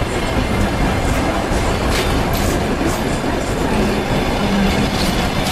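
Passenger coaches of a departing express train rolling past close by: a steady running noise from the wheels on the rails, with a few sharp clicks as the wheels cross rail joints.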